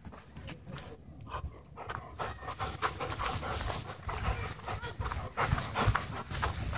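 German Shorthaired Pointer panting hard close up, with a rope toy in its mouth. The panting runs as quick, even breaths from about two seconds in.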